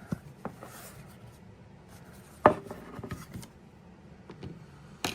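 Scattered clicks and knocks of small metal tools and objects being handled and set down on a workbench, the loudest about two and a half seconds in, with a little light rubbing between them.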